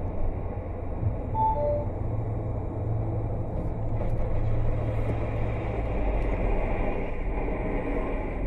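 Steady road and engine rumble inside a car at highway speed, easing as the car brakes hard from about 90 to under 20 km/h. A short two-note falling electronic beep sounds about a second and a half in.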